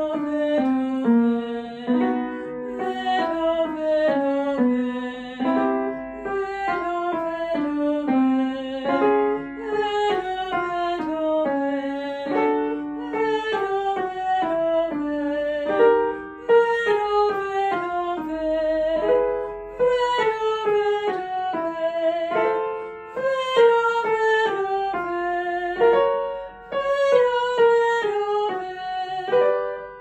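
A woman sings vocal warm-up scale patterns on syllables, accompanied by an upright piano; each short pattern is repeated a little higher than the one before.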